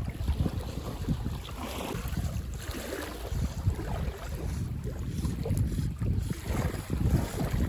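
Wind buffeting the microphone in uneven gusts, over small waves lapping in the shallows.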